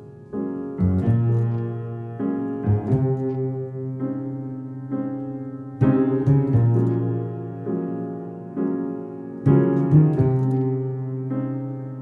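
Jazz piano trio playing: upright piano chords struck every second or two and left to ring, over plucked double bass notes.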